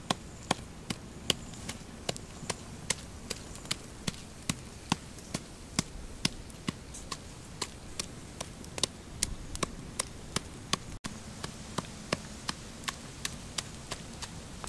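A stone pestle pounding in a mortar: a steady rhythm of sharp knocks, about two or three a second.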